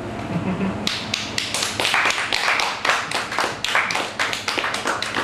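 A small audience clapping at the end of a ukulele song: quick, uneven claps that start about a second in and keep going.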